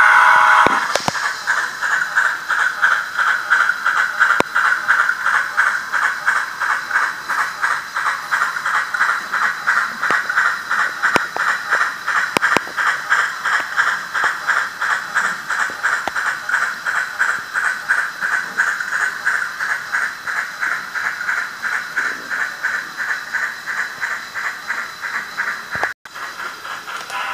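Sound decoder in an N scale Athearn 4-6-6-4 Challenger steam locomotive model playing steam exhaust chuffs in a fast, even rhythm through the model's tiny speaker, with a brief dropout near the end.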